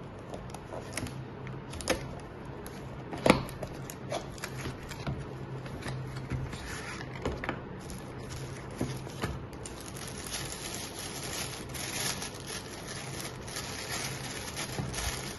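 Packaging being handled: scattered taps, scrapes and clicks as a seal is lifted and a paperboard box is opened, with one sharper knock about three seconds in, then a plastic bag crinkling from about ten seconds in.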